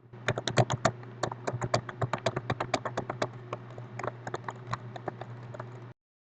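Rapid, irregular clicking and tapping, several clicks a second and varying in strength, over a steady low electrical hum; it starts and cuts off abruptly.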